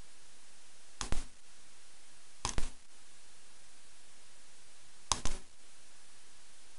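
Yale rim cylinder lock being worked at its keyway, giving three short bursts of sharp metallic clicks, each two or three clicks close together, about one, two and a half, and five seconds in.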